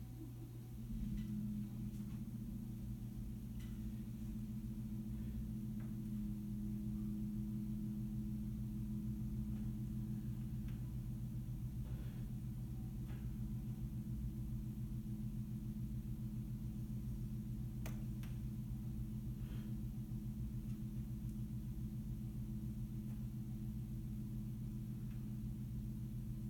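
A steady low hum with a few evenly spaced overtones, coming in about a second in, with a few faint clicks scattered over it.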